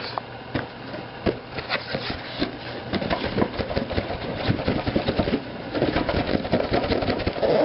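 Toy packaging being handled and pulled open: dense, irregular crackling and rustling with many small clicks throughout.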